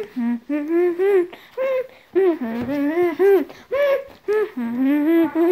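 A child's high-pitched voice singing a bouncy run of short syllables with no clear words, the pitch rising and falling from syllable to syllable.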